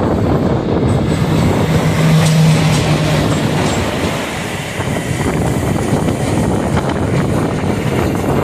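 Sevagram Express, hauled by twin WAG-5 electric locomotives, passing close by on the adjacent line, heard from the doorway of another train: a loud, continuous rumble and clatter of wheels and coaches. A low steady tone sounds from about one to three and a half seconds in.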